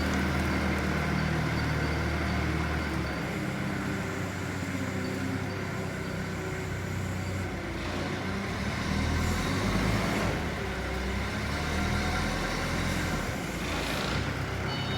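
Engine of a heavy vehicle or machine running steadily, its note shifting a few times as the engine speed changes.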